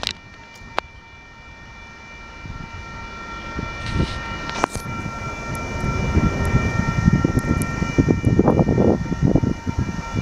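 Stopped intermodal stack freight train: a steady high whine of several tones over a low, uneven rumble that grows louder from about three seconds in.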